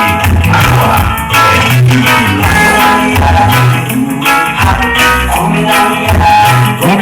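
Loud music with a steady beat, bass line and plucked guitar.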